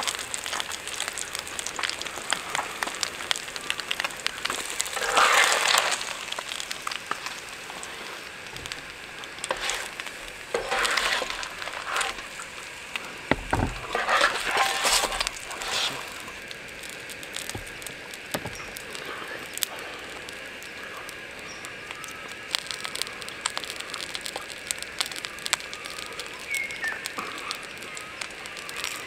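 Whole silver perch frying on the hot plate of a portable butane stove, crackling steadily. A few louder scrapes and a knock come as a metal spatula works under the fish.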